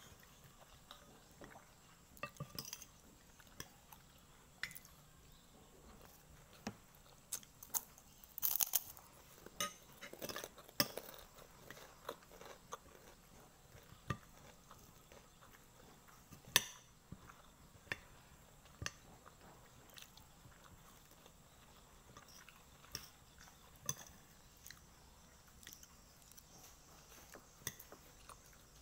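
Close-up eating sounds: chewing and crunching of fried chicken and fried rice, with a metal spoon clinking and scraping on the plate. Short irregular clicks, busiest about a third of the way in.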